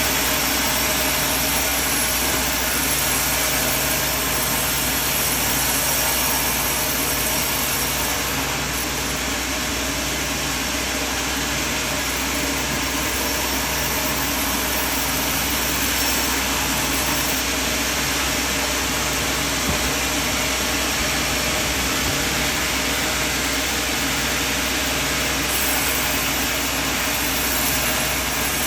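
Sawmill machinery running with a steady, even engine-like noise.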